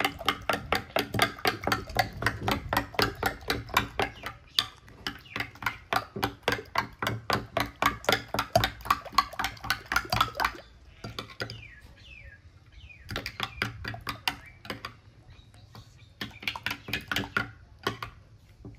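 Metal spoon clinking against a ceramic bowl as food is stirred: a quick, even run of about three or four clinks a second, each with a short ring, that thins out to slower, scattered clinks after about ten seconds.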